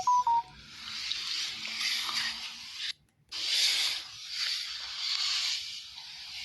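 Scratchy rubbing and rustling of a barber's hands working through the client's hair and scalp during an ASMR head massage, a rough hiss that swells and fades and cuts out briefly about three seconds in. A short electronic chime of a few rising notes sounds right at the start.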